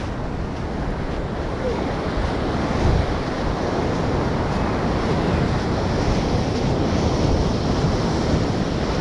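Ocean surf rushing on a sandy beach, mixed with wind buffeting the microphone: a steady rushing noise that grows a little louder after about two seconds.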